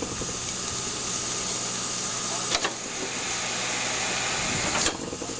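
Steam hissing from a standing steam locomotive over a faint steady low hum; after a sharp click about halfway through the hiss grows stronger, then eases near the end.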